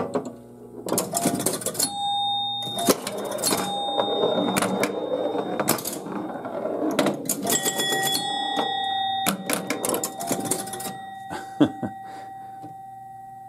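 1973 Gottlieb Home Run electromechanical pinball machine in play: relays, stepper units and score reels clicking and clattering, with its scoring bells struck several times and ringing on. The clicks die away over the last couple of seconds. The game has scoring faults that the repairer puts down to a stuck 10-point relay.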